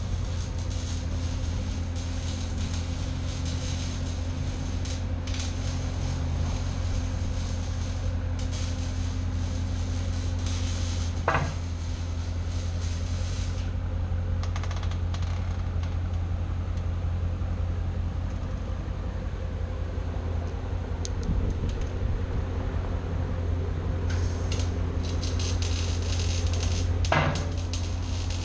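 Dodge Challenger Scat Pack's 6.4-litre Hemi V8 idling steadily with its mufflers removed (muffler delete), a low, even exhaust note. A sharp knock sounds about eleven seconds in and another near the end.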